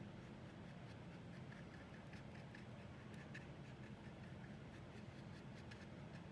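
Faint scratching and dabbing of a small paintbrush's bristles on paint-covered paper: a scatter of soft ticks, thickest in the middle, over a low steady room hum.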